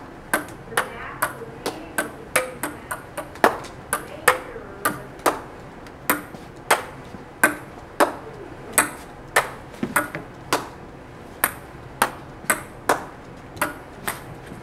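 A ping pong ball rallied back and forth: sharp, light clicks, about two a second, as it is struck with a plastic clipboard and a whiteboard and bounces on a desktop between hits.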